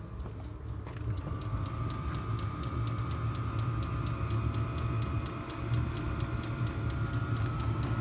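Chinese 5 kW diesel air heater running: its fuel dosing pump ticks rapidly and evenly over a steady low hum from the burner and a whine from the blower fan that climbs slightly.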